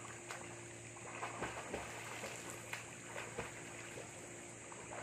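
Light, irregular splashing of a swimmer's arm strokes and flutter kick in a pool.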